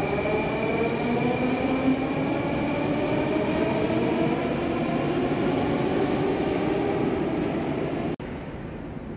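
Metro train pulling out of an underground station: a rumble of wheels on rail, with the traction motors' whine rising in pitch as it speeds up. About eight seconds in, the sound cuts off abruptly to a quieter station hum.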